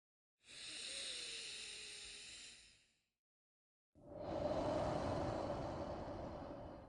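A person's slow, audible breathing, paced for an 'elevator breathing' relaxation exercise: a hissing breath of about two and a half seconds, a pause of about a second, then a louder, lower breath of about three seconds.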